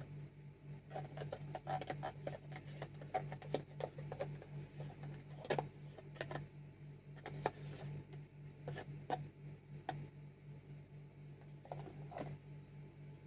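Scattered light clicks, taps and scraping as a can is emptied into a plastic mixing bowl by hand, over a steady low hum.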